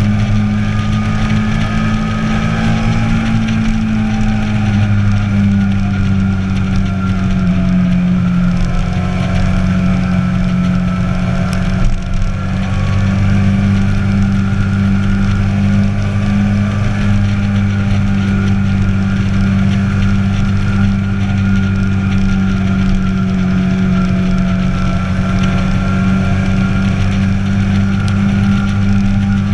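Sport motorcycle engine running at steady cruising revs, its pitch drifting slightly up and down, with a brief drop in level about twelve seconds in.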